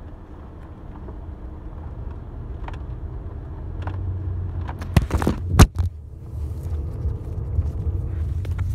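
Low steady wind rumble on the microphone, with a few faint clicks and two loud knocks about five seconds in.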